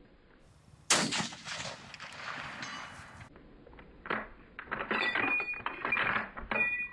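A .30-06 Remington 770 bolt-action rifle fires once about a second in, its report dying away over a couple of seconds. Then the bolt is worked with a series of metallic clicks and clacks and short ringing clinks.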